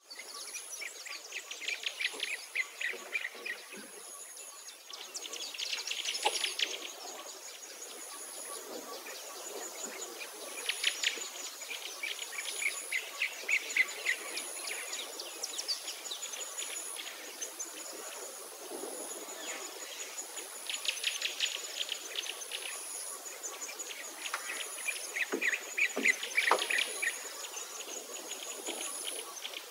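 Woodland birdsong: bursts of rapid trills and chirps every few seconds, over a thin, high note that pulses about once a second.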